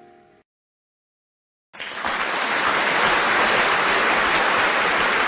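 The last notes of a guitar-accompanied song fade out, then after about a second of silence a loud, steady hiss like rushing water or rain comes in and holds, cutting off abruptly.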